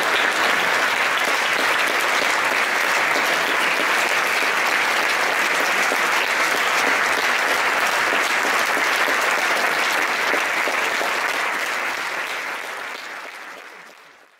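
Concert hall audience applauding steadily, fading out over the last few seconds.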